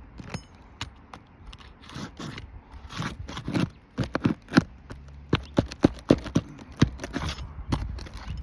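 A pry tool scraping and cracking at brittle, delaminated asphalt roof shingles while working them loose. It is a run of irregular sharp scrapes and cracks that gets busier about three seconds in.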